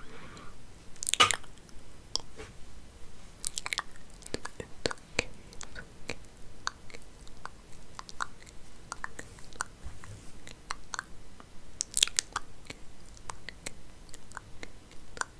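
Hair being combed and handled right against the microphone: an irregular run of crisp crackles and scratches, with louder strokes about a second in, near four seconds in and about twelve seconds in.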